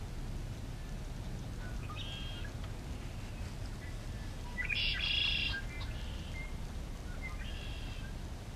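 Bird-like chirps: three short bursts of high twittering, the middle one about halfway through the loudest, over a low steady rumble.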